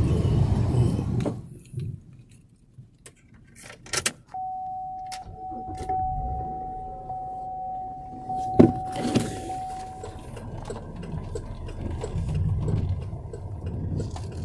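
A few sharp clicks at a car door, then a steady electronic tone that holds for about six seconds. A low hum of passing traffic runs underneath.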